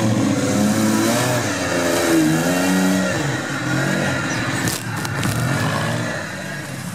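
Off-road trial vehicle's engine revving up and down under load as it climbs over a dirt mound, with a few sharp knocks about five seconds in.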